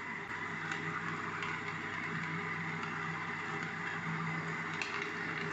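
Wet grinder running with rinse water in the drum: a steady motor hum with the churning of the rotating drum and stones, swelling and easing every second or two.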